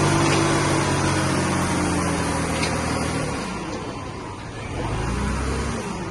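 Heavy earthmoving machine's diesel engine running steadily, fading away about three seconds in, with a brief low rumble returning near the end.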